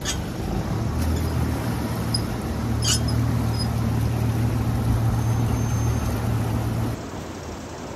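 Yamaha 115 outboard motor running steadily under way, a low drone mixed with wind and water rushing past the hull, with one short click about three seconds in. About seven seconds in, the engine drone cuts off and only quieter wind and water noise remains.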